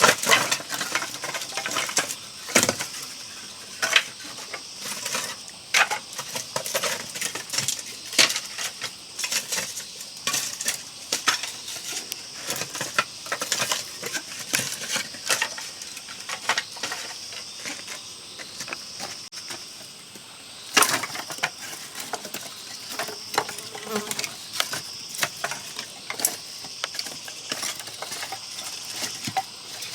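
Irregular sharp clinks and knocks of hard objects being handled, the loudest near the start and about 21 seconds in, over a steady high-pitched insect drone.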